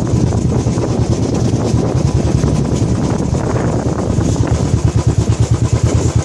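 Royal Enfield Bullet's single-cylinder engine running with a fast, even exhaust pulse, with wind buffeting the microphone.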